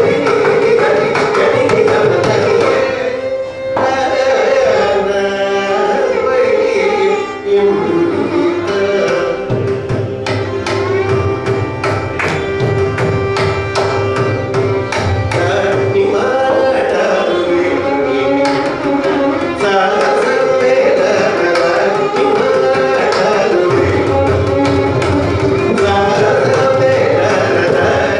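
Live Carnatic music: a male vocalist singing with violin accompaniment over the steady strokes of a mrudangam and kanjira, the drumming thickest in the middle.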